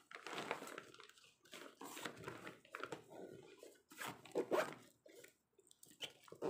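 Soft rustling and light bumps of a fabric cooler bag with a silver insulated lining being handled and its lid folded shut, in short irregular bursts.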